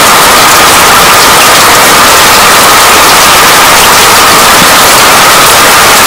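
Steady rain: a loud, dense, unbroken hiss that holds even throughout.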